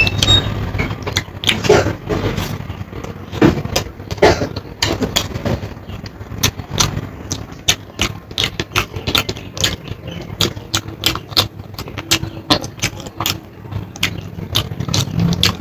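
Close-up eating sounds: chewing and mouth noises with many short irregular crunches and clicks, over a steady low hum.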